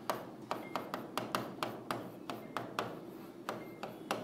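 Pen tip tapping and clicking on the glass face of a writing board while handwriting, sharp short taps about four a second at an uneven pace.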